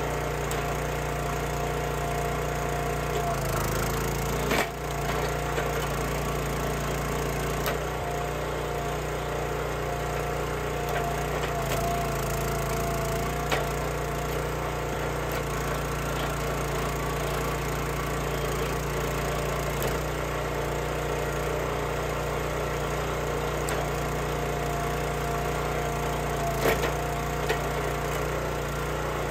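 Small gas engine on a hydraulic log splitter running steadily while the ram pushes logs onto the wedge, with a few sharp cracks as the wood splits.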